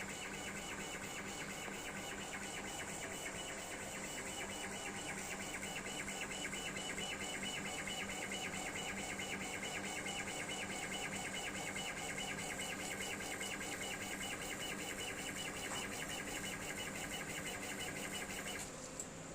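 Stepper motors of a homemade CO2 laser cutting and engraving machine driving the gantry during a job. They give a steady whine of several tones with a fast, regular stutter, which stops shortly before the end.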